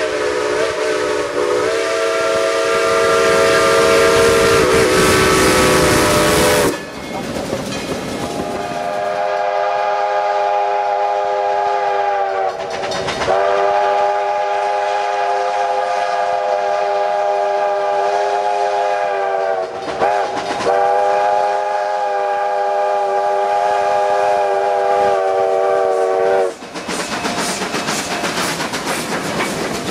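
Train's whistle sounding a chord of several notes in four long blasts. About 27 seconds in, it gives way to the steady clatter of wheels passing over the rail joints.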